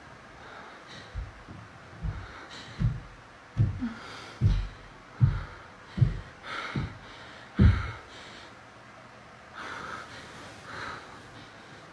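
A slow, even series of about nine dull, low thumps, a little under a second apart, growing louder and stopping about eight seconds in, with close, audible breathing over them and after them.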